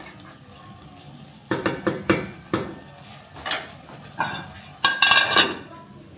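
Metal pots, dishes and utensils clinking and clattering: a string of sharp knocks starting about a second and a half in, with the loudest, ringing clatter near the end.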